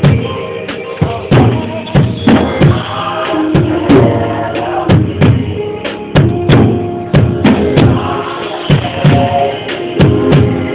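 Praise music: a drum kit beats out a steady, busy rhythm over held instrument notes.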